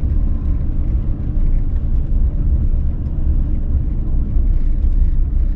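Steady low rumble of a pickup truck driving slowly, engine and tyre noise heard from inside the cab.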